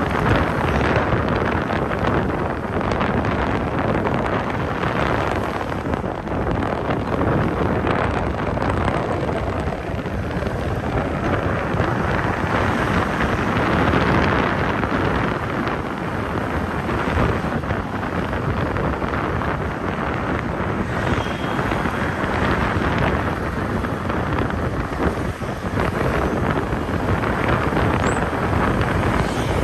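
Wind buffeting the microphone of a moving vehicle, over a steady rush of vehicle and road noise.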